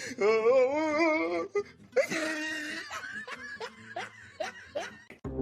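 A person laughing: a long laugh with a wobbling pitch, then a breathy burst of laughter and a few short snickers.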